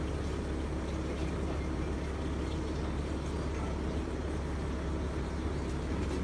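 A vehicle engine idling: a steady low rumble with a constant hum.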